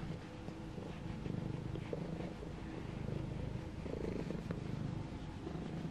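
Domestic tabby cat purring steadily, a low rumble, while its belly is rubbed.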